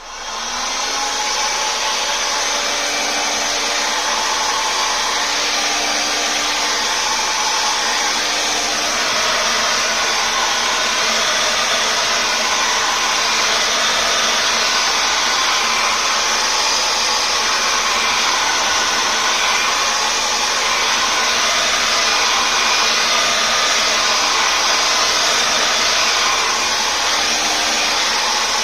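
Electric heat gun switched on and running steadily: a loud blower rush with a motor hum that rises as the motor spins up in the first second.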